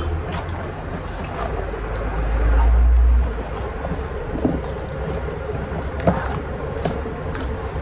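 Low wind rumble on the microphone, swelling about two seconds in and cutting off abruptly just after three seconds, over the small clicks and smacks of two people eating rice and chicken by hand.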